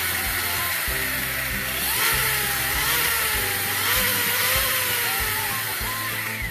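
An Arrma Kraton RC truck's electric motor and drivetrain whirring steadily as its wheels spin in the air, flinging trapped water out of the tires. Background music plays over it.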